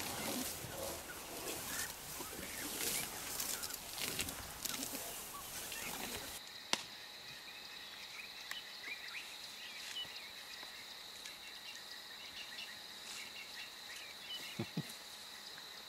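African elephants close by, rustling and crackling through grass as they walk and feed. About six seconds in this gives way to a steady high insect drone with scattered bird chirps and one sharp click.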